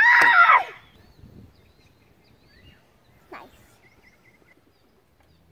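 A girl's short, loud cry of exasperation, then faint bird chirps over a quiet pond.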